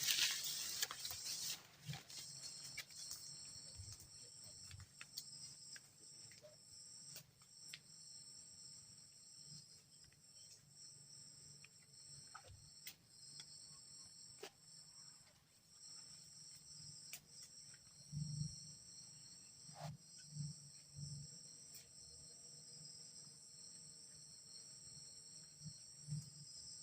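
Forest insects keeping up a steady, faint high-pitched drone in several layered tones, settling in about two seconds in. Scattered faint low knocks and clicks.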